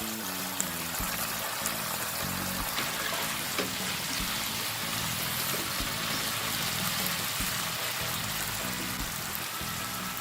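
Bok choy stems sizzling and bubbling in a wok with a splash of water and stir-fry sauce, a steady hiss with a few light clicks.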